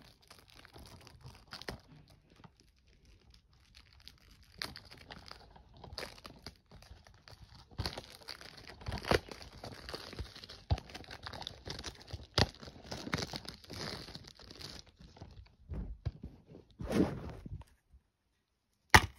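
Plastic wrapping being torn and crinkled off a DVD case by hand, with scattered crackles and handling knocks. A sharp click comes near the end as the plastic case is opened.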